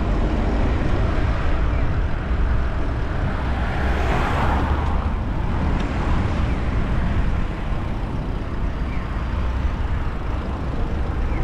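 Road traffic heard from a moving bicycle, with wind rumbling steadily on the GoPro's microphone; a passing vehicle swells up and fades about four to five seconds in.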